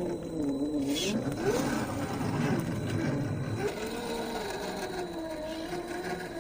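MST CFX-W RC crawler's 550 brushed electric motor and geared drivetrain whining, its pitch rising and falling as the throttle is worked. The whine is heavier through the middle of the stretch.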